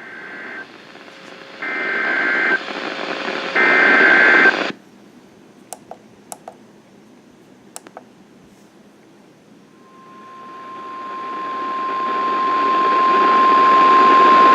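NOAA Weather Radio Emergency Alert System broadcast for a tornado warning: three roughly one-second bursts of screeching SAME digital header data over radio hiss, then a hissy pause with a few faint clicks. About ten seconds in, the steady single-pitch weather radio warning alarm tone begins and grows louder.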